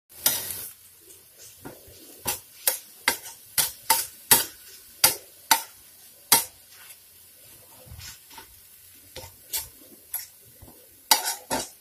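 Spatula scraping and clacking against a flat griddle (tawa) as onion-tomato masala is stirred and mixed, with a faint sizzle between the strokes. The strokes are sharp and irregular, with a quick cluster near the end.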